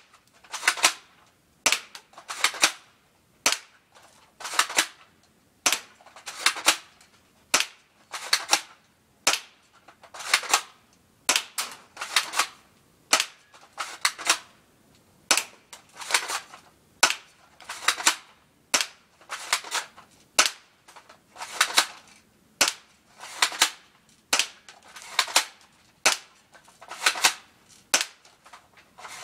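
Spring-powered airsoft MP5K being fired over and over, with a sharp snap alternating with a longer noisy burst about every two seconds, the rack and shot of a gun that must be cocked for each shot.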